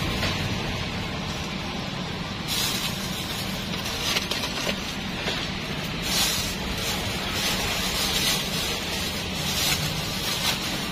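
Thin plastic bag crinkling and rustling in irregular spells, worst from about six seconds in, over a steady background hiss and low hum.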